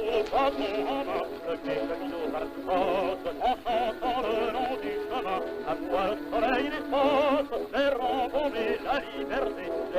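A man singing in an operatic style with heavy vibrato on long held notes, over steady instrumental accompaniment. The sound is thin and cut off above the upper mid-range, like an early phonograph recording.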